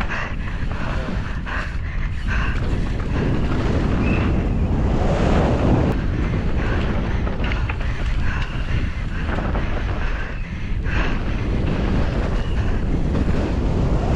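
Wind rushing over a bike-mounted or helmet-mounted camera microphone during a fast downhill mountain-bike run, a steady loud roar with rough, gusty rises and dips.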